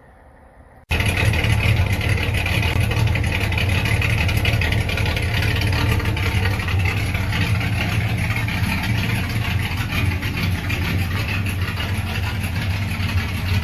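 Race truck engine running steadily, cutting in abruptly about a second in.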